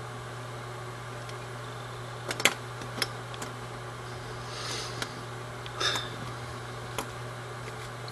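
Steady low hum of room tone, broken by a few sharp clicks, the loudest about two and a half seconds in. There are also two short, soft breathy hisses.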